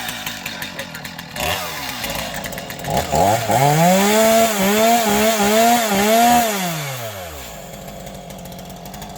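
Two-stroke chainsaw idling, then revved up to high speed about three seconds in, blipped up and down a few times at the top, and let fall back to idle.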